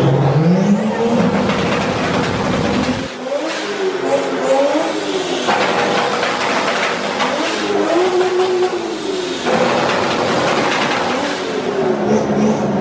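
A car engine revving hard, its pitch climbing and falling about three times, under a loud rushing noise.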